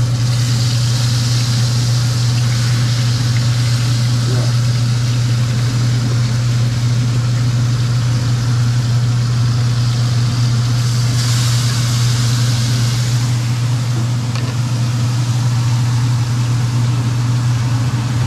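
Pieces of seasoned snapper going into hot oil in a pan and sizzling. The sizzle flares as the fish goes in, at the start and again about eleven seconds in. A loud, steady low hum like a motor or fan is the loudest sound throughout.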